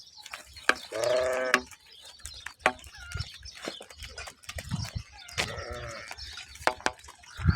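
Sheep bleating: one loud bleat about a second in and a fainter one near six seconds, among scattered knocks and clicks.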